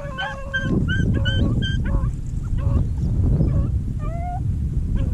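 A pack of beagles baying on a rabbit's trail: many short, repeated high-pitched bawls and yelps, some overlapping, the sound of hounds running a rabbit by scent. A heavy low rumble lies underneath.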